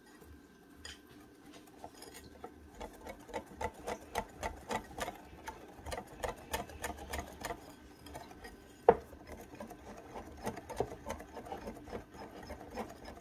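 A whisk beating thick batter in a ceramic bowl, making a fast, regular clicking and tapping that starts about two seconds in, with one sharp louder knock about nine seconds in.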